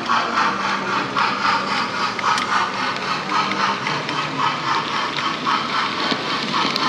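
HO-scale model steam train with passenger coaches running past, with a steady rhythmic beat about two to three times a second. A low motor hum stops a little past halfway, as the locomotive passes out of view.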